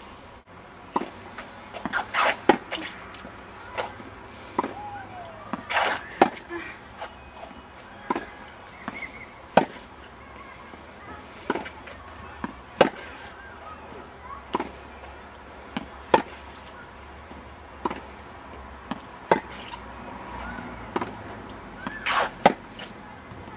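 Tennis balls being struck with rackets in a practice rally: a sharp hit about every one and a half to two seconds, with a few fainter bounces and scuffs between them.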